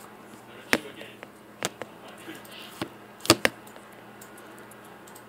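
A handful of short, sharp clicks and knocks, irregularly spaced with a close pair about three seconds in, over faint room tone.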